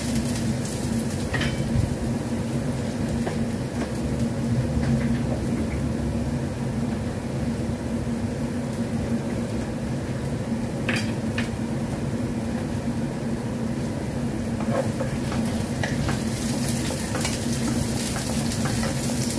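Carrot slices and garlic sizzling in oil in a nonstick frying pan, steady throughout, with a few brief taps and scrapes of a wooden spatula against the pan. A steady low hum runs underneath.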